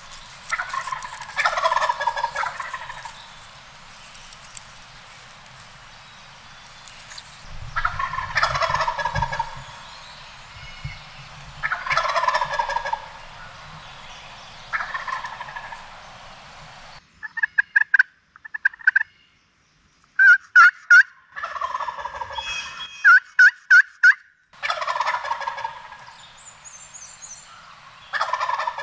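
Wild turkey gobbler gobbling again and again, a gobble every few seconds. In the second half, short runs of sharp yelping notes come between the gobbles, which answer them.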